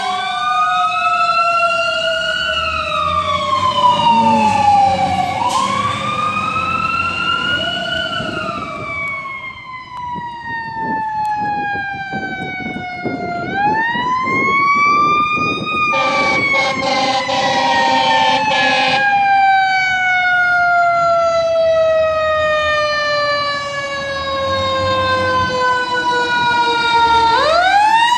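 Fire truck siren wailing. Its pitch climbs quickly and then slides slowly down, four times, with the longest slide lasting about ten seconds. A steady horn blast of about three seconds comes just past the middle.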